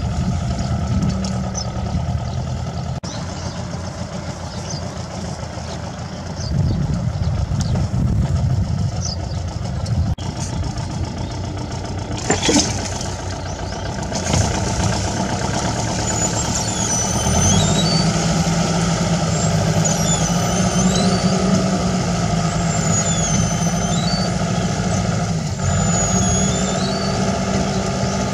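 Farm tractor running under load, pulling a rotary tiller and six-row seeder through the soil, with a steady low engine drone. A single sharp click comes about halfway, and short high chirps sound over it in the second half.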